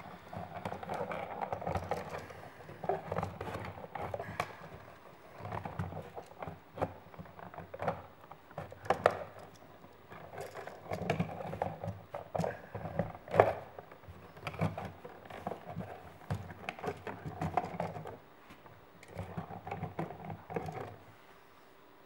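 A wired USB wall outlet being pushed and worked into a wall electrical box by hand, its stiff wires folding in behind it: irregular scraping and rubbing with scattered sharp clicks and knocks, the loudest knock about halfway through.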